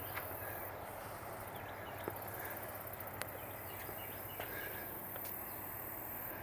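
Outdoor wetland ambience: scattered faint bird calls over a steady hiss, with a couple of brief sharp clicks.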